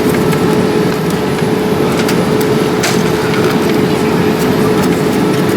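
Boeing 787-8 passenger cabin noise: a steady, loud rush of airflow and engine noise with a constant hum tone, plus a few faint clicks.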